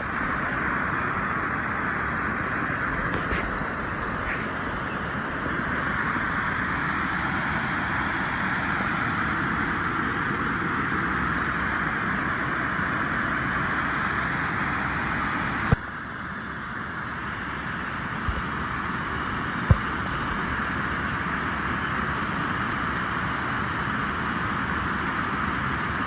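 Steady rushing of a trout stream's flowing water, even throughout, with a sharp knock about two-thirds of the way through and a couple of small clicks soon after.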